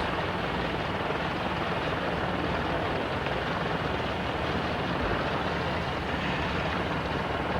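Single-engine Citabria light aircraft's piston engine and propeller running steadily at low power on the ground, with a steady low drone.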